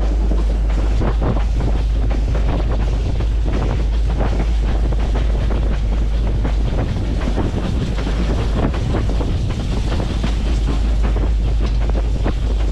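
Wind buffeting the microphone: a steady, heavy low rumble with constant crackling gusts.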